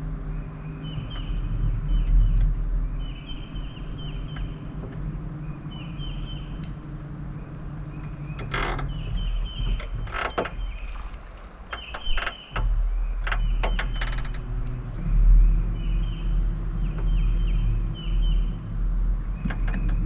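A steady low motor hum that stops about eight seconds in and starts again sharply about twelve and a half seconds in. Short, repeated, high bird chirps recur throughout, and a few sharp clicks and knocks fall in the middle.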